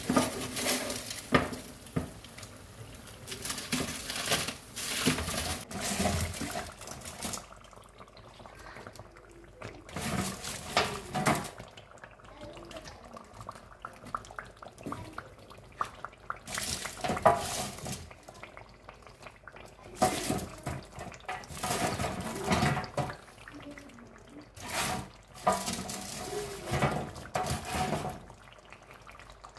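Pieces of meat being spooned into a pot of tomato stew: wet splats with a spoon clinking and scraping against the pot, in irregular bursts with short pauses.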